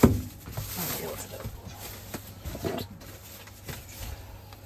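A sharp knock, then soft rustling and shuffling as bags are handled and packed into the luggage box under a train compartment's lower berth.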